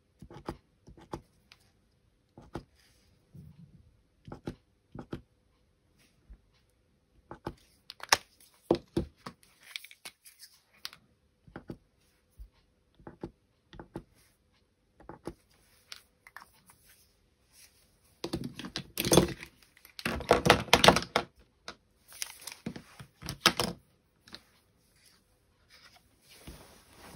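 Plastic paint-marker tips tapping on card as dots are pressed on, a scattering of light separate clicks. In the last third comes a denser, louder clatter of the plastic pens being gathered up and handled.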